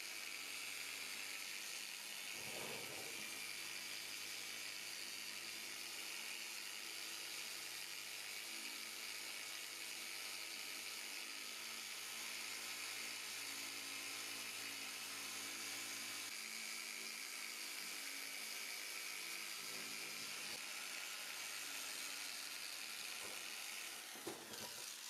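Small corded electric orbital polisher running steadily with its pad on a plastic headlight lens: a whir with a hiss, winding down at the very end.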